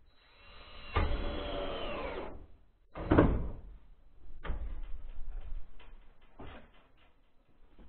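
Power drill driving screws to fasten profiled sheet-steel trim: a run of about two seconds with the motor's pitch shifting under load, a second short burst about three seconds in, then scattered clicks and taps of the tool and sheet metal.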